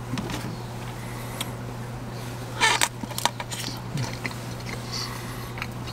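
Someone eating: plastic cutlery scraping and tapping in a styrofoam takeout container, then chewing, with a few short clicks and a brief louder burst about halfway through, over a steady low hum.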